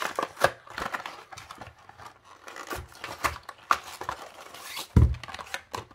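Cardboard packaging being handled: a run of rustles, scrapes and light taps, with a dull thump about five seconds in.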